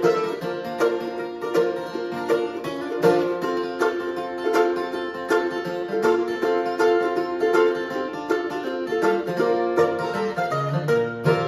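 Mandolin and acoustic guitar playing an uptempo bluegrass instrumental, with quick picked mandolin notes over the guitar's rhythm.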